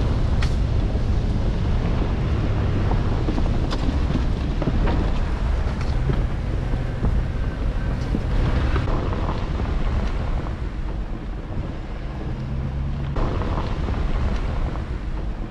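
4x4 truck driving on a dirt trail: engine and tyre noise with wind buffeting the microphone, and a few sharp clicks.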